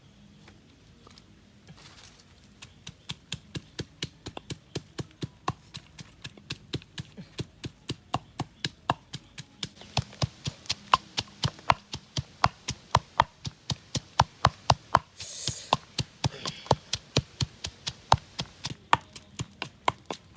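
Knife chopping on a cutting board in steady strokes, about three a second, starting a few seconds in and getting louder about halfway through. A brief hiss comes in about fifteen seconds in.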